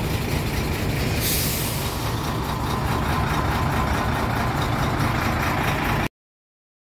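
Heavy JAC semi-truck's diesel engine idling with a steady low rumble, with a short burst of air-brake hiss about a second in; the sound cuts off suddenly near the end.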